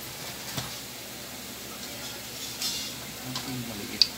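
Light clicks and small knocks of hands and tools handling a bare electric fan motor on its stand, over a steady low background hiss; a sharper click comes near the end.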